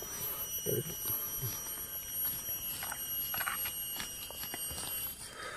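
Forest insects droning steadily with several high, unbroken tones, and a few small scattered knocks.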